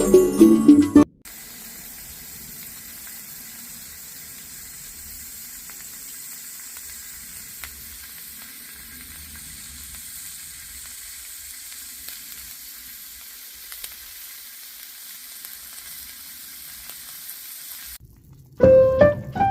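Steady sizzling hiss of food frying in a pan, with a few faint pops. Background music cuts off about a second in and comes back near the end.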